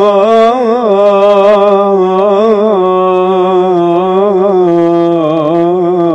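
A man singing an Egyptian ibtihal (Islamic supplication chant) solo and unaccompanied. He holds one long melismatic note, its pitch wavering through quick ornamental turns and stepping gradually lower toward the end.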